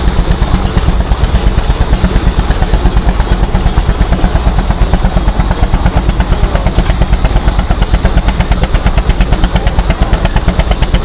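An engine running steadily with a rapid, even beat of strong low pulses.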